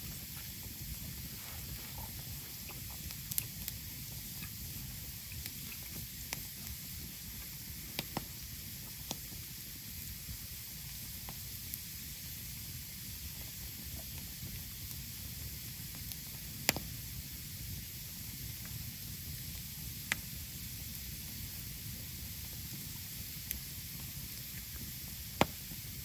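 Wood campfire burning with a steady hiss, broken by scattered sharp crackles and pops every few seconds.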